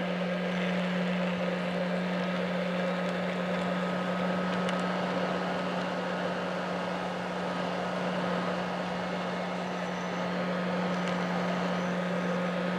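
Small electric motor of a homemade plastic-bottle mini vacuum cleaner running steadily, a constant hum with a rush of air over it.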